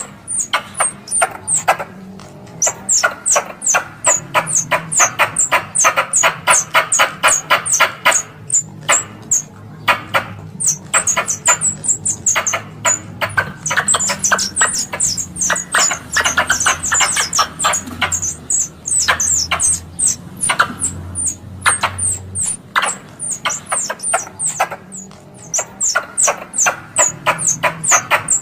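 Squirrel calls: rapid trains of clicking chatter, each topped by short high chirps that drop in pitch. The calls repeat in bouts with brief gaps between them.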